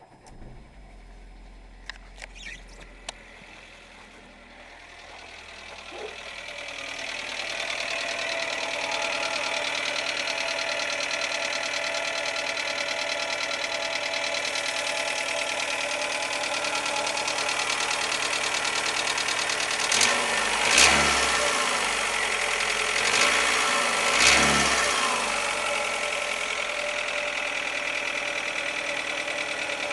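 2007 Renault Logan's 1.6-litre 8-valve petrol engine running with a steady, even knock, briefly revved twice past the middle. The knock is the fault the owner is asking about, its cause unknown.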